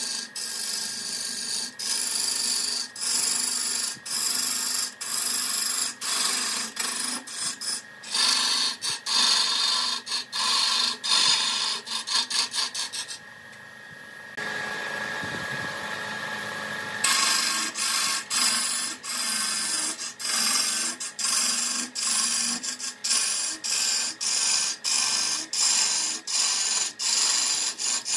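Wood being worked with a tool in quick, repeated scraping strokes, about one to two a second. The strokes break off briefly about 13 seconds in, leave a steadier hiss for a few seconds, then start again.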